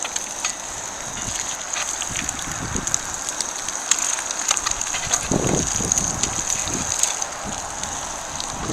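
Eggs frying in butter in a cast iron skillet over a propane camp stove: a steady sizzle with scattered small pops and crackles.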